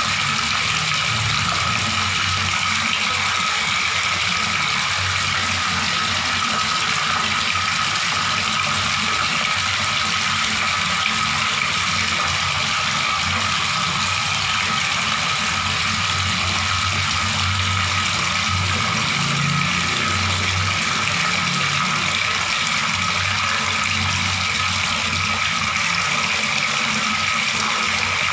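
Water running steadily from a tap, an even, unbroken splashing.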